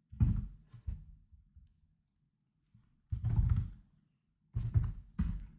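Computer keyboard being typed on in three short clusters of keystrokes, with quiet gaps between them.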